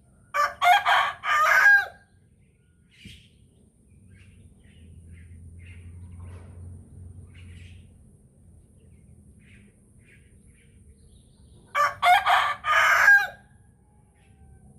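Rooster crowing twice: one full cock-a-doodle-doo near the start and a second about twelve seconds in, each lasting about a second and a half.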